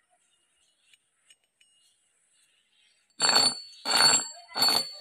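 Steel gears knocking against each other: about three seconds in, three metallic clanks in quick succession, each leaving a high ringing tone.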